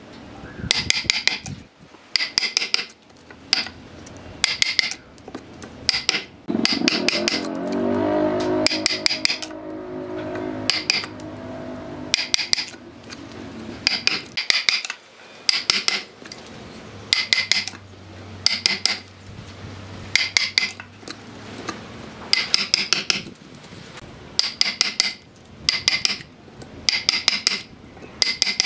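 A mallet driving a steel chisel into the end grain of a tree stump, chopping out the wood between saw kerfs: short runs of three or four quick blows about once a second, each blow with a metallic ring. A lower wavering hum rises about seven seconds in and fades out by about twelve seconds.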